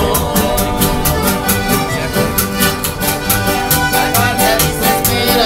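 Mariachi-style band playing live on accordion and nylon-string acoustic guitar: the accordion carries the melody over a quick, steady strummed guitar rhythm and a repeating bass line.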